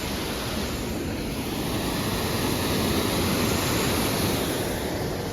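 Wind blowing across the microphone on an exposed mountainside: a steady rushing hiss with an unsteady low rumble.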